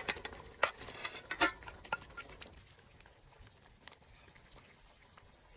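Raw fish pieces slid with a metal ladle from a steel bowl into a pot of broth: several splashes and clinks of metal on metal in the first two seconds. After that, fainter liquid sounds as soup is scooped with the ladle into a bowl.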